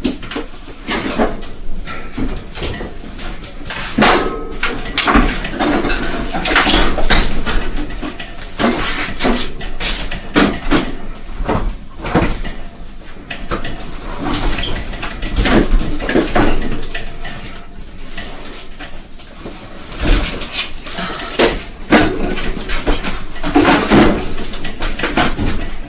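Packages being shoved and rearranged in an overfull freezer: a steady, irregular run of clunks and knocks as the freezer door is pushed against them and will not shut.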